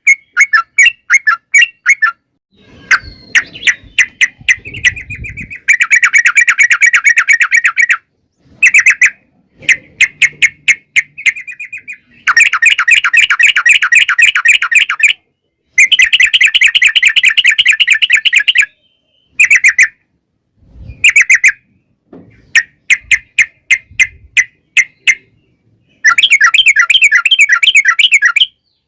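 Yellow-vented bulbul (trucukan) singing: long runs of rapid, chattering trilled notes, each run lasting a second or three, broken by short pauses.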